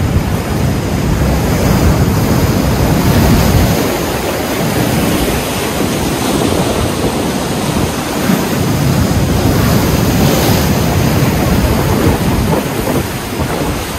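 Ocean surf breaking and washing over shoreline rocks, rising and falling in surges, with wind buffeting the microphone.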